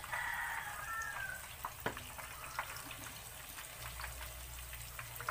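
Battered prawns deep-frying in hot oil in a wok: a steady sizzle with many small crackles and pops. A brief high tone sounds over it in the first second and a half.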